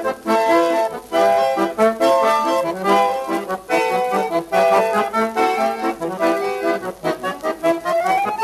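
Background music: a lively accordion tune with quick, rhythmic notes.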